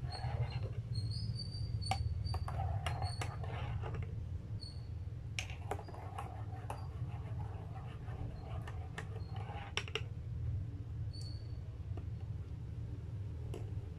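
Metal spoon stirring a drink in a ceramic mug, scraping and clinking against the sides in a run of sharp ticks and short high squeaks that thin out near the end, over a steady low hum.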